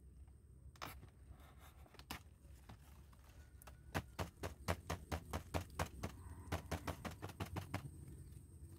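A quick, irregular run of sharp taps or knocks, about four a second, with a couple of single clicks before it.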